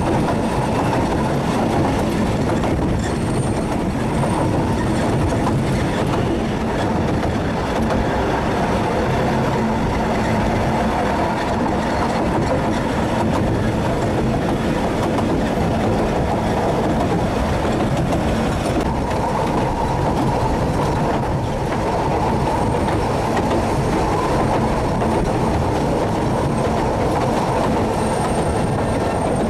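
Narrow-gauge Ffestiniog Railway train running along the line: a steady, loud rumble of carriage wheels on the rails, with a faint high squeal coming and going.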